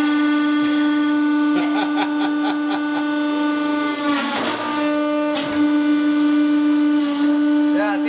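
Hydraulic press running with a loud, steady droning whine as its ram squashes a modelling-clay figure. The drone dips in pitch with a brief noisy rush about four seconds in, as the ram takes the load.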